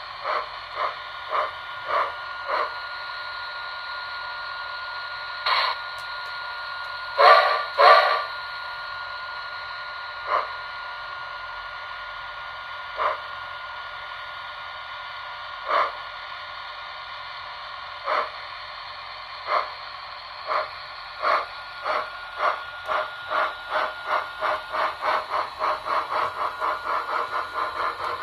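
HO-gauge D51 model steam locomotive running on its track: a steady hiss and hum with short clicks. The clicks thin out to one every few seconds in the middle, then come faster and faster toward the end.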